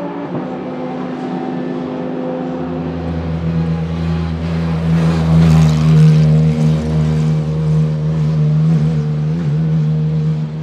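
Porsche 991.2 GT3 R race car's flat-six engine running at a steady low note as the car rolls slowly down the pit lane. It grows loudest about halfway through as the car passes close. A different, more distant car engine can be heard in the first couple of seconds.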